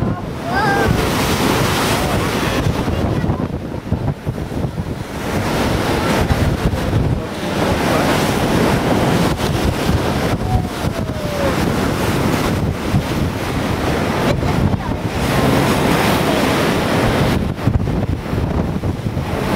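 Wind buffeting the microphone aboard a moving boat, over the rush of water, rising and falling in loudness.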